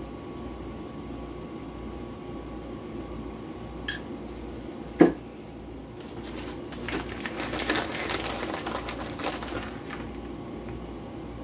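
A plastic bag of shredded cheese crinkling as it is handled and opened, for about three seconds in the second half. Before it comes a single sharp knock about five seconds in, over a steady kitchen hum.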